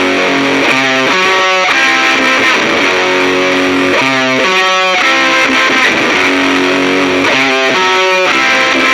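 Electric guitar playing a series of chords that change every second or so, through an amp simulator with a Fender Twin Reverb impulse response.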